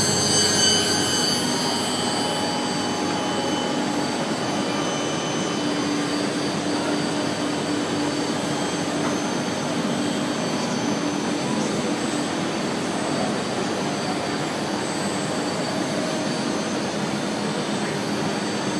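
Four-head CNC wood router running: a steady machine noise with high spindle whine, the high tones strongest in the first second.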